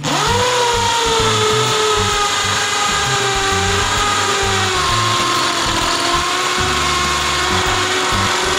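Mailtank 13 mm impact drill starting up and boring a 10 mm bit into a concrete block. It runs steadily under load with a whine that sags slightly in pitch a few seconds in.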